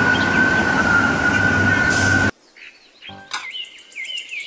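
Fire truck siren holding a steady high tone over street traffic rumble, cutting off abruptly about two seconds in. Then quiet, with a few clicks of plastic toy vehicles being handled and faint repeated chirps.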